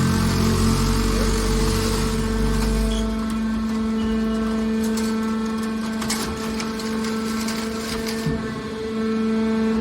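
Hydraulic scrap metal baler running: a steady hum from its hydraulic power unit, with a deep rumble that eases off about three seconds in and a few faint knocks.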